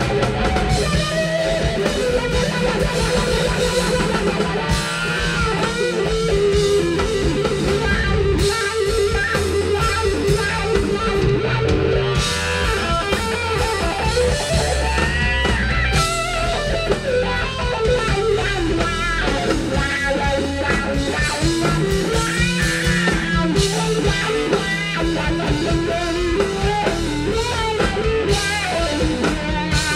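Live rock band playing: loud electric guitar over bass guitar and drum kit, with no singing.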